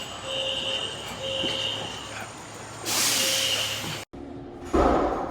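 Building fire alarm sounding: three beeps of under a second each, a pause, then a fourth beep under a loud hiss. The sound cuts out briefly about four seconds in, and a loud burst of noise follows near the end.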